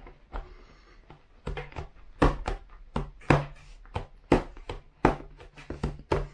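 Cardboard sleeve being pushed and worked off a black torque-wrench case: a short sliding rustle in the first second, then irregular clicks and knocks as the case and sleeve are handled on the desk, the sleeve proving hard to get off.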